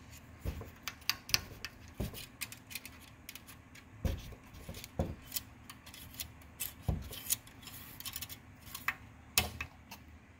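Metal engine oil dipstick being handled in its tube: irregular clicks, ticks and short metallic scrapes with a few louder knocks. The engine is off.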